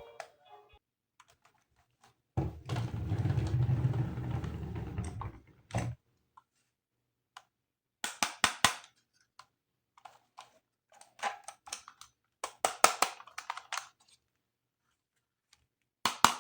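Plastic toy parts being handled. For about three seconds there is a rubbing, rustling sound, followed by several quick runs of small hard clicks and taps.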